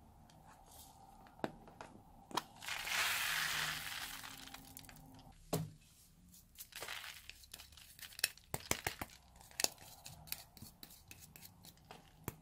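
Small foam beads pouring out of a clear plastic heart-shaped ornament in a hissing rush for about a second and a half, starting about three seconds in, after a single click. Then many light clicks and taps of the plastic shell and loose beads being handled.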